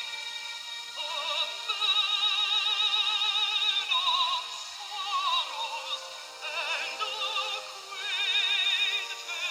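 Background music with a high singing voice holding long notes with strong vibrato.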